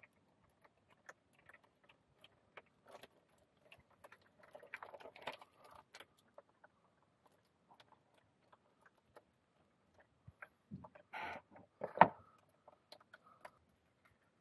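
Hydraulic oil dripping from the open filter housing of a John Deere 6000-series tractor in faint scattered ticks, with metal clinks and scrapes as the hydraulic filter screen is pulled out; the loudest clink comes about twelve seconds in.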